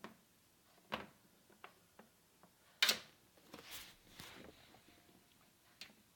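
Scattered clicks and a brief rustle of a USB Type-C cable being handled, unplugged and plugged in; the loudest sharp click comes about three seconds in.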